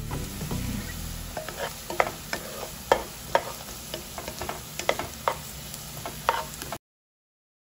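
Food being stirred in a frying pan: a utensil scrapes and clicks against the pan at irregular intervals over a light sizzle, and the sound cuts off abruptly near the end.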